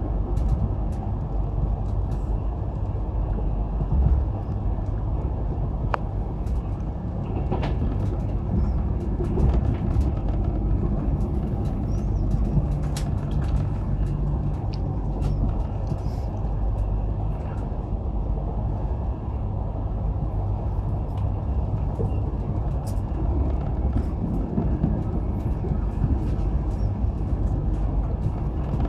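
Steady low rumble of a train running at speed, heard from inside the carriage, with occasional light clicks.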